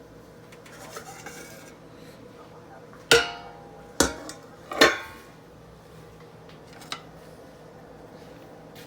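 Metal clanking of a large rice pot and its lid: three sharp, ringing clanks about a second apart as the lid is taken off the cooked rice.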